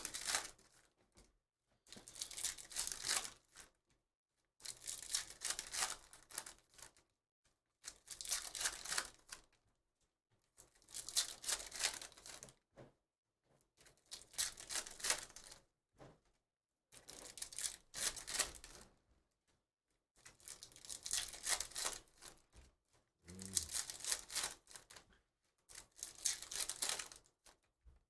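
Trading card pack wrappers being torn open and the cards inside handled, pack after pack: repeated bursts of tearing and crinkling about every three seconds, with silence between them.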